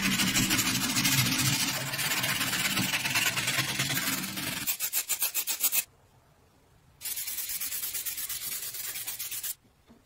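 Hand sanding: abrasive scraping steadily over a hard surface, breaking into quick back-and-forth strokes about five seconds in, then stopping; after a pause of about a second, another steady run of scraping.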